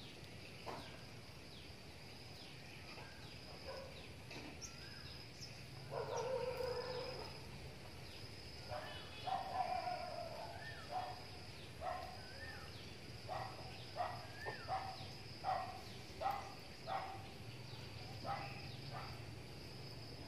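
Outdoor ambience with a steady high insect trill, joined from the middle onward by a run of short animal calls, about one a second, that are the loudest sound.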